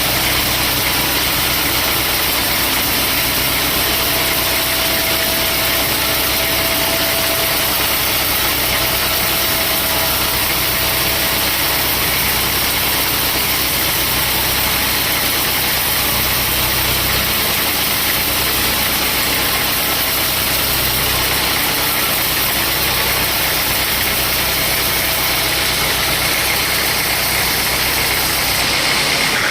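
Sawmill machinery running steadily: a saw and its engine with a constant, even hiss and a low hum.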